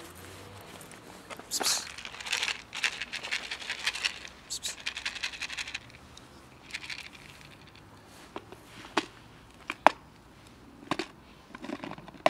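Plastic food packaging crinkling and rustling in rapid crackles as it is handled and opened, followed by a few sharp clicks and taps.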